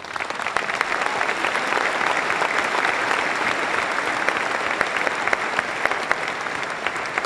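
A large audience applauding, many hands clapping. It breaks out suddenly and holds steady.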